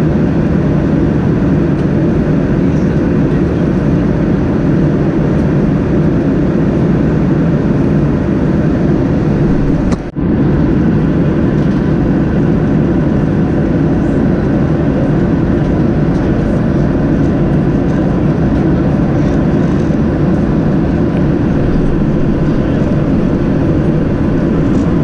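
Steady engine and cabin noise inside a Boeing 737-800 airliner, a constant low rumble with a brief dip about ten seconds in.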